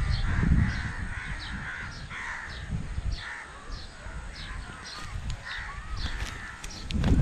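Crows cawing repeatedly, with another bird giving short high calls in a steady series about every half second. Under them runs a low rumble on the microphone that swells near the start and again near the end.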